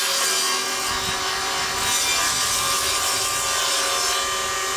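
A saw cutting through a sheet of OSB board as the board is pushed along the bench: a steady, continuous sawing noise.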